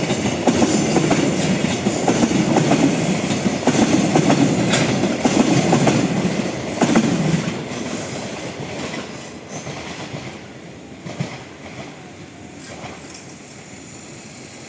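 Train running past on the rails with wheels clattering over rail joints, loud for about seven seconds, then fading away as it moves off.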